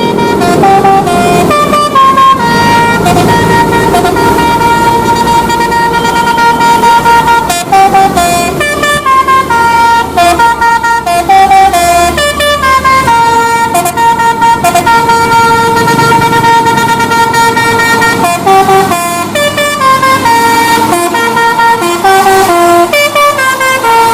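Multi-tone musical vehicle horn of the Indonesian 'telolet' (basuri) kind playing a melody of stepped notes, some short and some held for several seconds. A low engine rumble runs underneath for about the first half.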